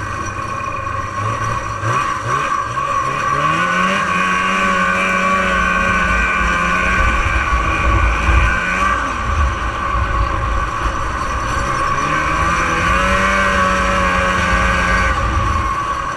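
1989 Arctic Cat Jag 440 fan-cooled two-stroke twin snowmobile engine under way: the revs climb a few seconds in and hold, ease off, then climb and hold again before backing off near the end. A steady high whine runs underneath throughout.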